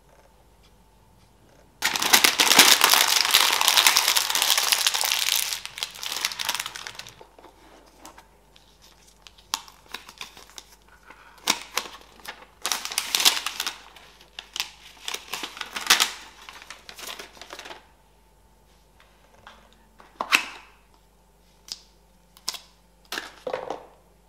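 Packaging wrap being handled and unwrapped from iMac accessories: a long, dense crinkling for about five seconds near the start, then shorter bursts of rustling and a few sharp ticks.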